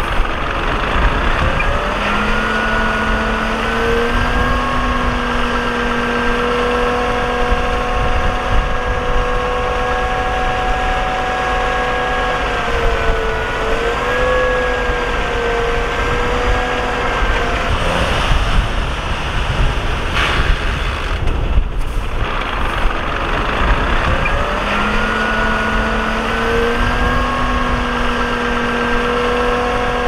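Heavy diesel earthmoving machine running, a dense low rumble under a steady pitched whine. The whine wavers about halfway through, drops out for several seconds, then comes back near the end.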